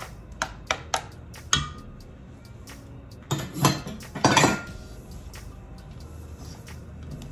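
Silicone spatula tapping and scraping against a stand mixer's wire whisk and a stainless steel mixing bowl as meringue is folded into cake batter. A few light clicks come in the first two seconds, then a louder stretch of clattering and scraping on the bowl from about three to four and a half seconds in.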